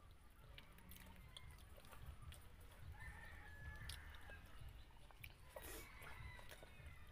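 Faint eating by hand: small wet mouth clicks and chewing, and fingers working through rice. Faint bird calls sound in the background, once about three seconds in and again near the end.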